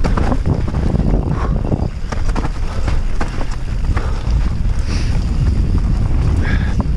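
Wind buffeting an action camera's microphone while a mountain bike rides down a dirt trail. Under the wind are a steady tyre rumble and frequent short clattering knocks from the bike.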